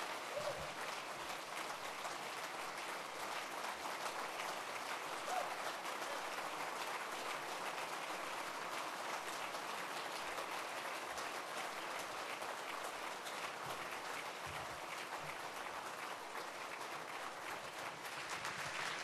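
An audience applauding, a steady, unbroken clapping that holds at an even level throughout.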